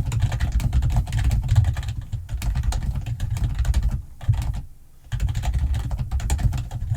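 Fast typing on a computer keyboard, rapid keystroke clicks each with a low thud. The typing pauses for about a second about four seconds in, then carries on.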